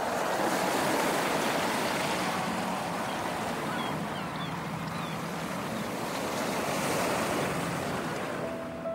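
Sea waves churning and surging, a dense steady rush of surf that stops suddenly at the very end.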